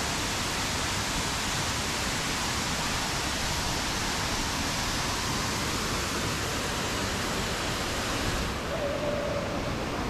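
Waterfall water rushing in a steady, even hiss; the highest part of the hiss thins out about eight and a half seconds in.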